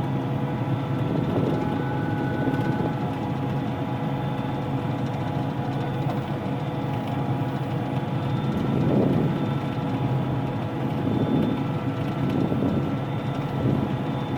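Combine harvester running and cutting wheat: a steady machine drone with several held tones layered over it, swelling a little a few times.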